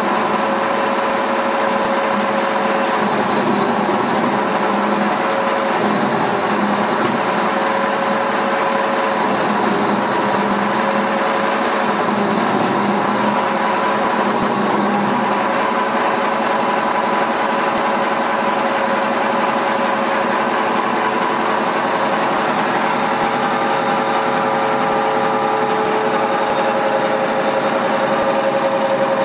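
Animal feed crumbler running steadily while feed pellets are fed in and crushed, an even mechanical drone with a steady whine held through it.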